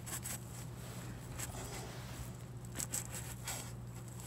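Faint handling sounds, a few small rustles and clicks, over a steady low hum.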